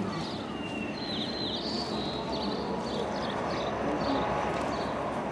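Small birds chirping over a steady background of outdoor noise, with short high calls every half second or so and a quick run of falling notes about a second in.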